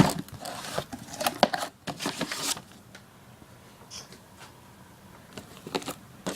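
Cardboard box and packaging being handled and opened: scattered rustles and knocks, most of them in the first two and a half seconds, then a few lighter clicks.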